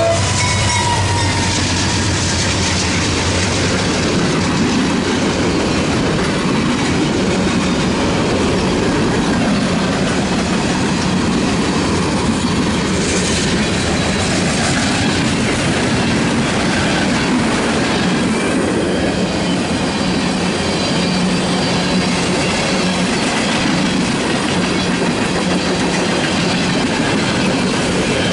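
Freight train passing close by. A GE Dash 8 diesel locomotive goes past in the first few seconds, with the last of its horn at the very start, then a long line of freight cars rolls past with a steady noise of wheels on rail.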